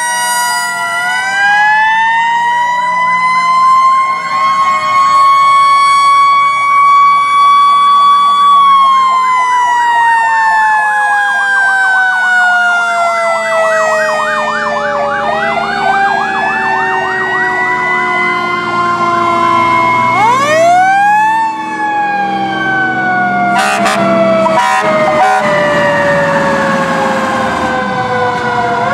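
Several sirens on passing antique fire engines and an old ambulance sound at once. Slow wails rise and fall and overlap with a fast warble, and a few short sharp blasts come about three-quarters of the way through, over the low running of the trucks' engines.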